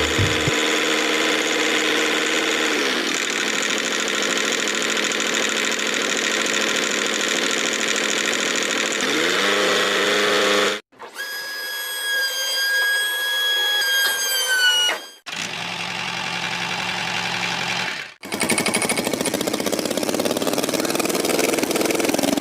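Small motors running steadily in several short clips cut one after another. In one, the hum dips and then rises again. In another, a high whine winds down and stops.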